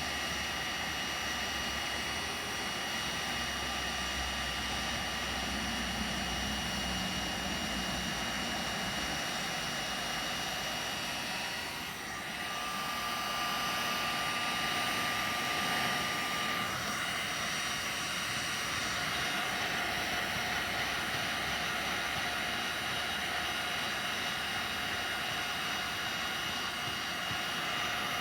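Heat gun running steadily, a rushing blow with a thin steady whine, as it melts scratched polyethylene on a plastic boat hull. The sound dips briefly about twelve seconds in.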